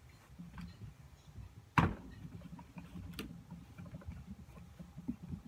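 Small knocks and handling noises of objects being moved about on a desk, with one sharp knock a little under two seconds in and a lighter click about a second later.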